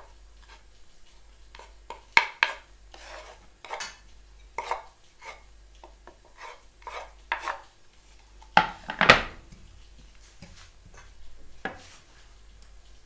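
Wooden spatula scraping chopped garlic off a wooden cutting board into a frying pan, a run of short scrapes and knocks with louder ones about two seconds in and again about nine seconds in. The oil is still cold, so there is no sizzle.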